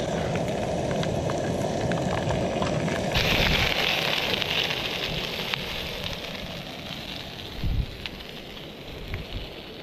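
Pork sausages sizzling in an oiled frying pan on a camping gas stove, a steady spitting hiss with small crackles. About three seconds in the sizzle turns suddenly brighter and louder, then slowly dies down, with a brief low thump near the end.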